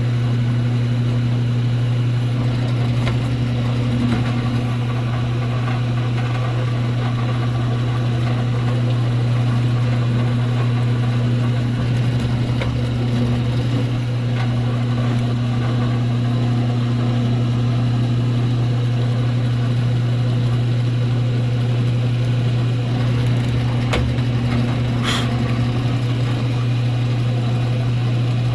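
Electric motor of a drilling machine running steadily with a constant hum while an acetate pen blank is drilled, a few faint ticks over it.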